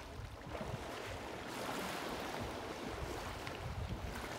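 Water sloshing and splashing around African elephants wading and bathing in a waterhole, with wind buffeting the microphone in low rumbles. The water noise swells a little about one and a half seconds in.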